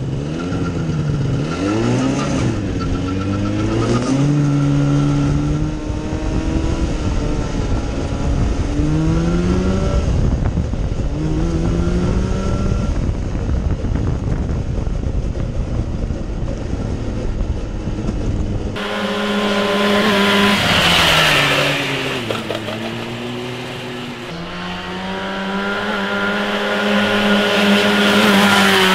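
A small go-kart's snowmobile engine revving up and down again and again as the kart is driven hard. For the first two-thirds it is heard from on board under heavy wind rush on the microphone; then it is heard from beside the track, the engine note rising and falling more clearly.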